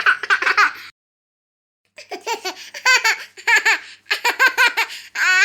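A young child laughing in high-pitched bursts: a short run of giggles, a pause of about a second, then a longer run of quick, rhythmic laughs.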